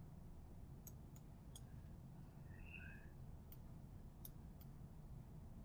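About six faint, sparse clicks of a computer mouse over a steady low hum of room noise.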